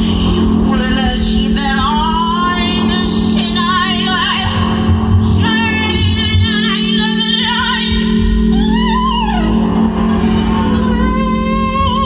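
Live female vocals: a woman singing held, wavering notes with strong vibrato over a steady, sustained keyboard chord backing.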